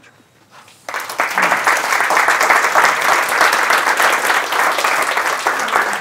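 Audience applauding, many hands clapping, starting suddenly about a second in after a short quiet.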